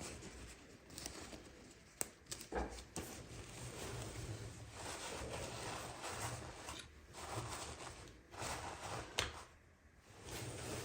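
Toy packaging being handled and opened: rustling of plastic and cardboard in uneven stretches, with a few sharp clicks and snaps.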